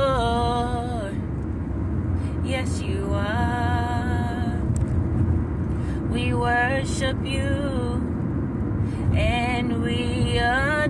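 A woman singing or humming drawn-out, wordless notes in about four short phrases, sliding between pitches, over a steady low rumble of road noise inside a moving car.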